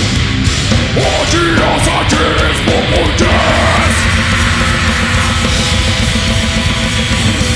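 Live heavy metal band playing loud and dense: distorted guitar, fast drums and crashing cymbals. A harsh shouted vocal line comes in about a second in and runs for a few seconds.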